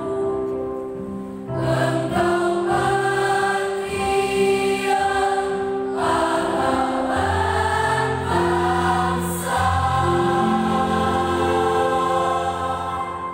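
Mixed choir of women and men singing a hymn in harmony, with long held notes. The lower men's voices come in strongly about seven seconds in.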